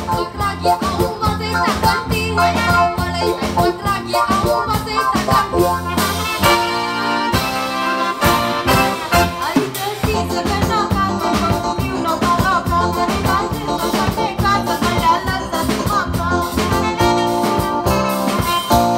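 Live band music with a steady beat, drum kit and a wavering melody line.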